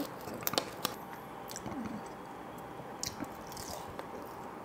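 Small plastic dip cup having its peel-off lid pulled away: a few sharp clicks and crinkles in the first second, then scattered faint clicks as the cup is handled.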